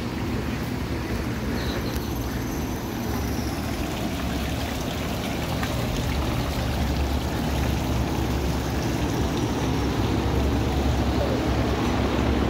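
Steady rushing and trickling of running water, as from a garden fountain, over a deep rumble that grows slightly louder.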